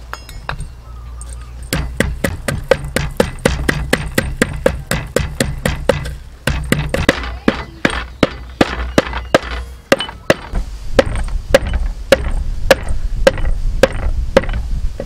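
Wooden pestle pounding black peppercorns in a deep wooden mortar: a steady run of sharp knocks, about four a second at first and slowing to about two a second in the second half, with short breaks around six and ten seconds in.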